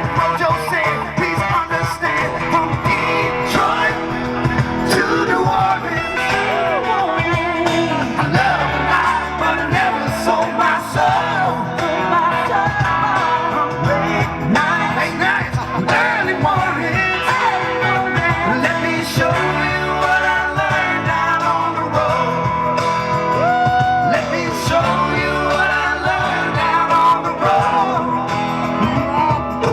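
Live rock band playing loud, with guitar and singing.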